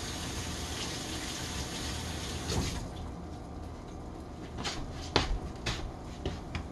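Kitchen tap running, shut off abruptly about three seconds in, followed by a few light knocks.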